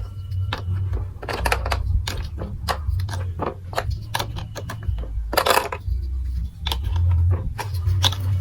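Plastic marble-run building blocks clicking and clattering in irregular sharp clicks over a low rumble, with a longer clatter about five and a half seconds in.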